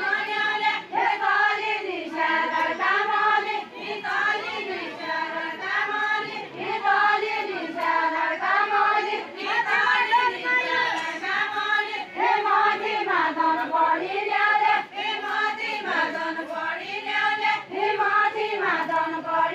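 A crowd of mostly women singing a deuda folk song together, many voices on one repeating melody.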